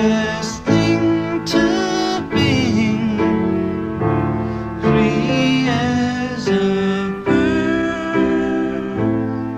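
Piano playing slow chords, changing about once a second, with a man's voice singing over it at times.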